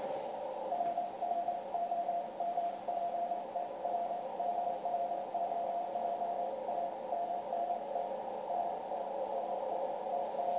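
Morse code (CW) received on a Yaesu FTdx1200 HF transceiver on the 80-metre band: a single beeping tone of about 700 Hz keyed in dots and dashes over steady band hiss, a station calling CQ.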